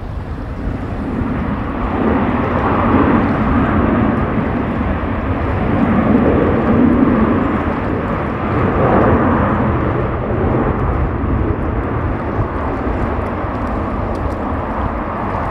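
Jet noise of an Airbus A330-300 airliner with Rolls-Royce Trent 700 engines coming in to land: a loud, low rumble that swells about two seconds in and eases slightly in the second half.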